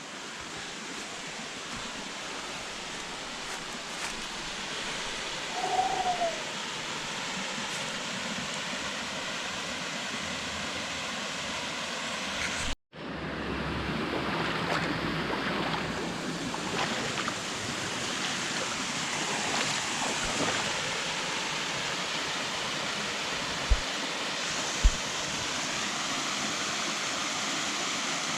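Steady rush of flowing stream and waterfall water. It cuts out for an instant about halfway and comes back a little louder, and two short knocks sound near the end.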